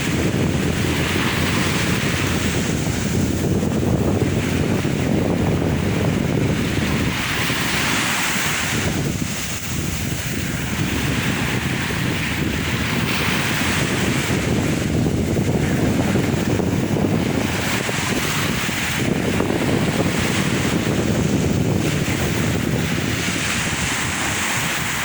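Sea waves washing onto the shore, the surf rising and falling every few seconds over a steady rumble, with wind buffeting the microphone.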